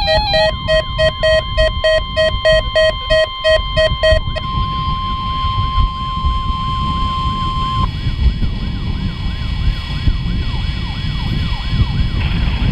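Emergency alert tones from weather radio receivers: pulsed beeping tones for the first four seconds, then the steady 1050 Hz NOAA Weather Radio warning alarm tone for about three and a half seconds. Underneath, a siren sweeps quickly up and down about three times a second, over a low rumble.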